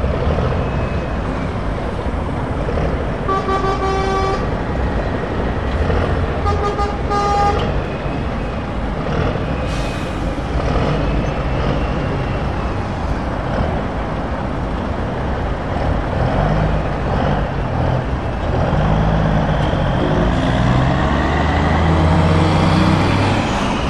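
Heavy trucks' diesel engines running as they pull away at low speed, with two short air-horn blasts a few seconds apart early on. Near the end a deep engine note rises and falls as a truck accelerates away.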